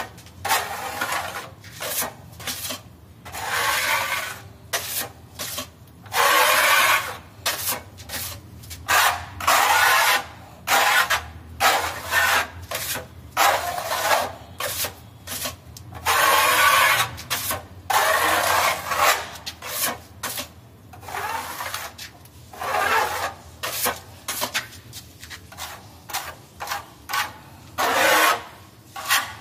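Steel putty knife scraping wall putty across a cement wall in repeated rough strokes, each up to about a second long, with short gaps between them.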